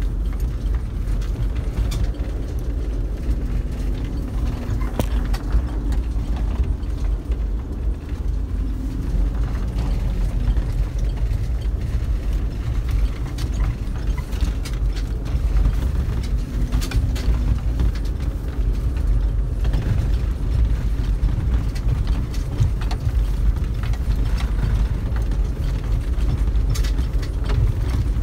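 Vehicle driving slowly over a snowy track, heard from inside the cab: a steady low engine rumble with scattered short clicks and rattles.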